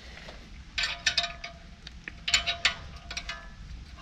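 Steel 15 mm wrench and extender clinking and knocking together against the caliper bracket bolt as they are fitted on, in two clusters of sharp clinks about a second in and around two and a half seconds in, each with a short metallic ring.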